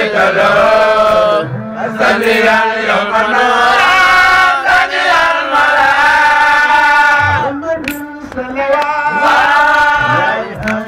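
A man chanting Arabic verses into a microphone, amplified over a sound system, in long held melodic phrases that waver and slide in pitch, with brief breaths between phrases.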